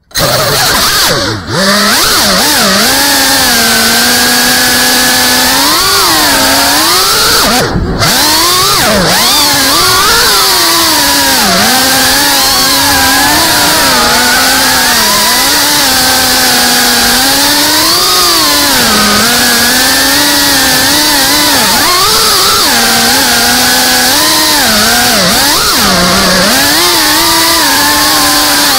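GEPRC CineLog35 FPV cinewhoop's brushless motors and ducted propellers, heard from the drone's own camera, whining steadily with the pitch rising and falling as the throttle is pushed and eased through fast turns. The sound dips briefly twice in the first eight seconds, with a hiss of rushing air over the whole.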